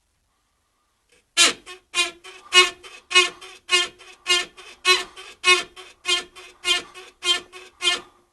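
Hyundai Elantra HD's rear suspension squeaking in a regular rhythm: about a dozen loud, pitched squeaks, roughly one and a half a second, each followed by a fainter one. It starts about a second and a half in.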